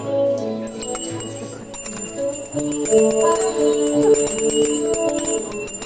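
Instrumental music playing a melody over a bass line, with small handbells shaken and ringing continuously over it from about a second in.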